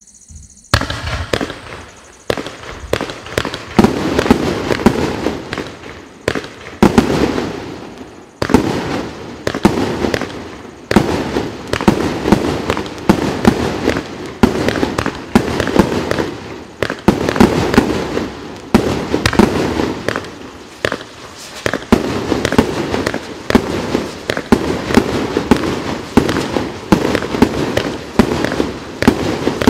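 Pangu Fireworks 'Colorful City' cake firing shot after shot, starting about a second in: a sharp bang roughly every second, with a dense crackle between the shots.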